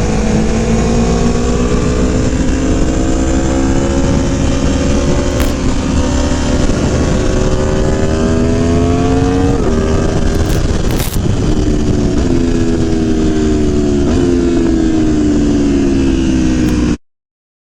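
Aprilia Tuono V4 1100 engine under way on track, heard onboard over a steady rushing noise. The revs climb slowly, drop at a gear change about ten seconds in, then fall away with another shift near fourteen seconds. The sound cuts off abruptly just before the end.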